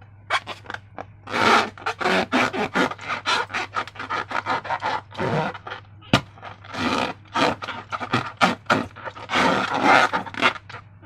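Slime being worked by hand: an irregular run of wet scraping and rubbing strokes, with one sharp click about six seconds in.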